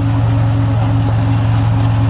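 Off-road vehicle engine running at steady revs: a constant hum with an even, rapid firing pulse.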